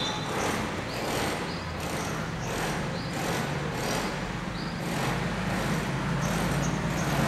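Steady outdoor town background noise with a low hum, like distant road traffic, with faint soft brushing sounds recurring every half second or so.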